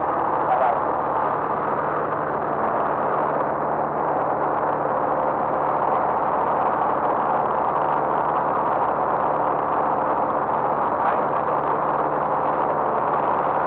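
Light aircraft's engine and propeller droning steadily in level flight, heard from inside the cockpit.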